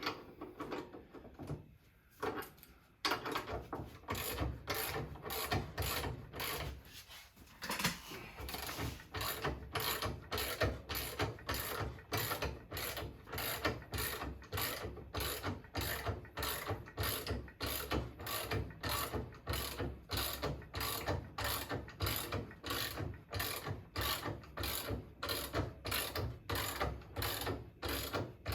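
Ratchet wrench clicking steadily, about two clicks a second, as it winds up a motorcycle scissor jack under the bike. The clicking starts about three seconds in and breaks off briefly once before carrying on.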